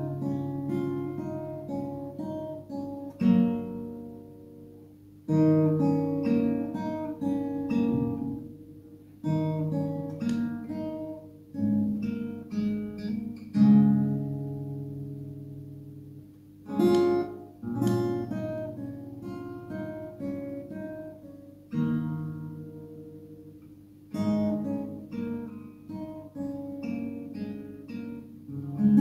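Steel-string acoustic guitar with a capo, its chords plucked note by note in short phrases. Each phrase ends with the notes ringing and fading before the next one begins.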